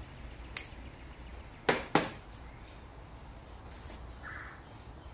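A pipe lighter clicking while a pipe is lit: one light click, then two loud sharp clicks about a third of a second apart, over a low steady hum.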